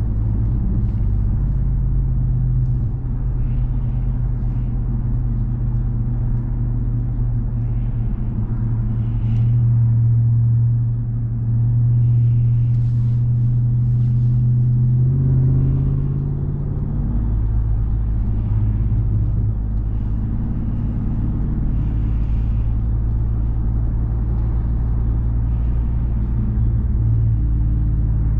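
2021 Ram 1500 TRX's supercharged 6.2-litre Hemi V8 running steadily under way, a continuous low drone. The engine note changes about halfway through, then settles again.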